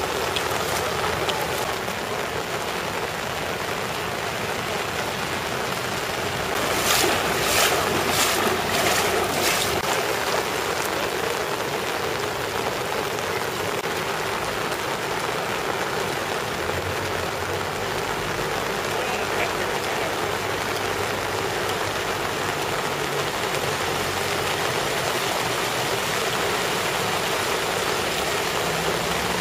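Steady rush of rain and water on a flooded street as cars drive slowly through the deep floodwater. A louder stretch of several short bursts comes about seven to ten seconds in.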